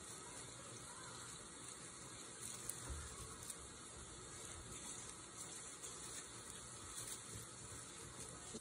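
Faint crackling rustle of dry leaves as kittens wrestle and roll in a leaf nest, over a steady hiss, with a few sharper ticks near the middle.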